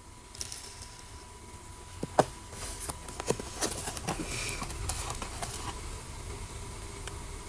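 Blind-bag packaging being handled: irregular crinkling and sharp clicks, thickest in the middle few seconds, then settling down.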